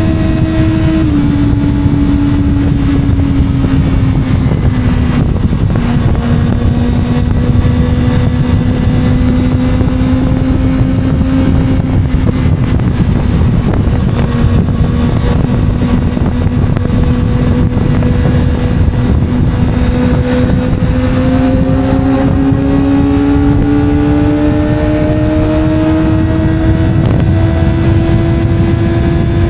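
Kawasaki ZX-25R 250 cc inline-four running at steady cruising revs over heavy wind rush. The engine note dips slightly early on, holds level, then climbs gradually in the last third as the bike speeds up.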